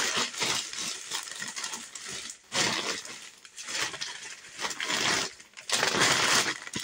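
A plastic bag rustling as clothes are pulled out and handled. The rustling comes in bursts: one at the start, one about halfway through, and a longer one near the end.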